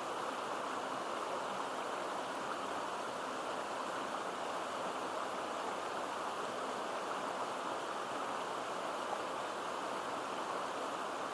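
A stream babbling steadily over rocks: an even, unbroken rush of water.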